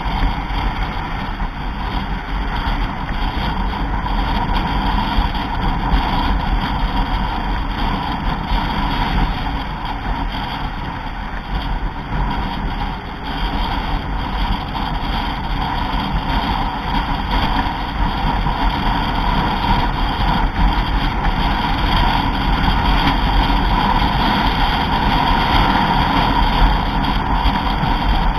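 Steady noise of a vehicle at road speed: engine and tyre noise with wind rushing over the microphone.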